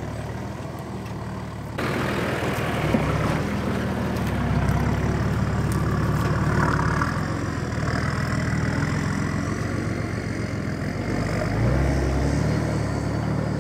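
A four-wheel drive's engine running at low revs as the vehicle crawls over a rough dirt track and a fallen log.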